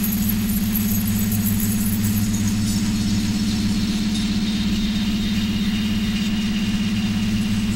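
Steady low drone with a fast, even flutter and a thin hiss above it: environmental and industrial sound from a microphone, run through a mixer oscillator and a Korg analog synthesizer.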